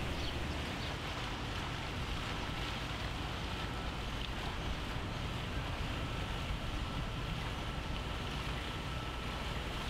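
Steady rushing and splashing of a large fountain's water jets, with a faint thin steady tone running through most of it.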